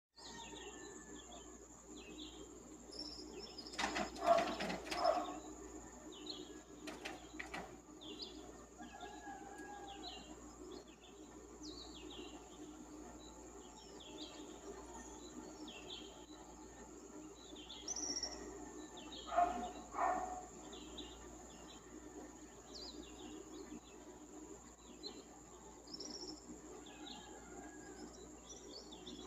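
Dawn chorus in the Amazon forest: a steady high insect drone under many short, repeated bird chirps. Twice, a few seconds in and again about two-thirds through, a louder, lower animal call stands out.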